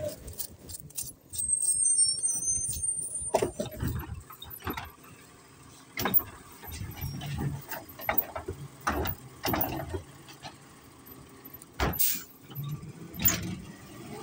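Automated side-loading garbage truck running while its lifting arm tips a wheeled trash cart into the hopper, with repeated clanks and knocks, a brief high squeal early in the lift and one loud bang near the end.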